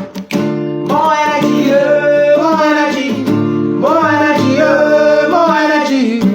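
Song: a voice singing over strummed acoustic guitar, the singing coming in about a second in.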